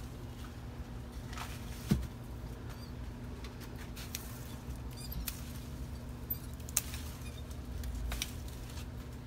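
Light rustling with scattered small snaps and clicks as leafy gourd vines are handled. The sharpest click comes about two seconds in. A steady low hum runs underneath.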